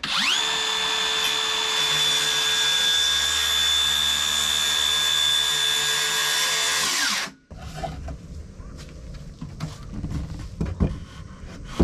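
Cordless circular saw cutting a wooden board to length: the motor spins up at once, runs steadily through the cut with a high whine, and winds down with a falling pitch about seven seconds in. Light knocks of the cut board being handled follow.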